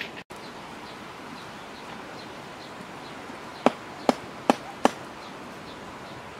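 Four quick chops of a knife on a chopping board, cutting raw meat, about 0.4 s apart, a little past halfway through.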